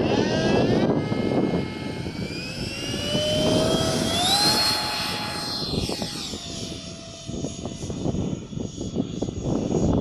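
Electric ducted fan of a Durafly D.H. 100 Vampire model jet whining and rising in pitch as it spools up for takeoff, holding at full power, then falling in pitch as the jet climbs away about six seconds in. Gusty wind buffets the microphone throughout.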